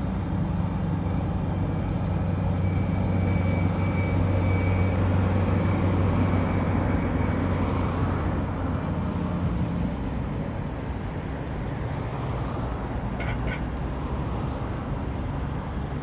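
Diesel engines of Holmer sugar beet harvesting machines, a beet harvester and a beet transfer vehicle, working in the field: a steady low drone that is loudest in the first half and eases off after about ten seconds.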